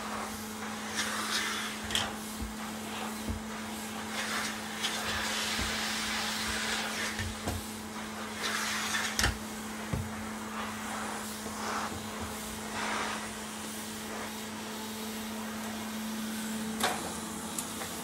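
Vintage Nilfisk GA70 canister vacuum cleaner running with a steady motor hum, its floor nozzle pushed back and forth over carpet in repeated swishes of suction noise, with a few sharp knocks along the way.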